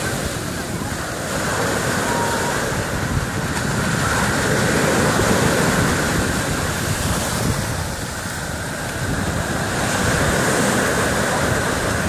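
Surf breaking and washing up a sandy beach, the rush of water swelling about two seconds in, easing around eight seconds and building again near ten, with wind blowing across the microphone.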